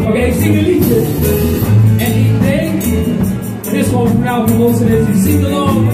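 Live band playing electric and acoustic guitars and keyboard, with a man singing into a handheld microphone over them.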